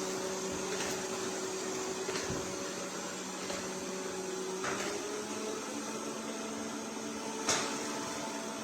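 MONSGA robot vacuum cleaner running with a steady motor hum, its pitch stepping up slightly about five seconds in. A few light knocks come through, the sharpest about seven and a half seconds in.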